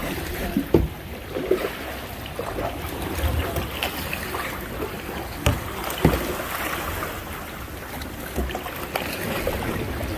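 Kayak paddles dipping and splashing in seawater, with water trickling and dripping. A few sharp knocks stand out, the loudest about five and a half and six seconds in.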